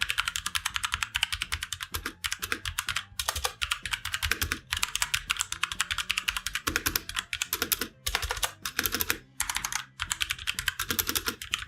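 Fast continuous typing on a tenkeyless mechanical keyboard with Outemu brown tactile switches, a close-up clatter of key clicks with a few brief pauses.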